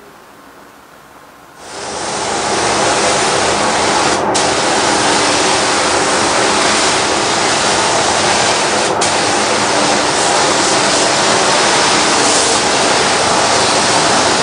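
Paint spray gun hissing steadily as it sprays paint onto a car bumper, starting about two seconds in, with two momentary dips in the hiss.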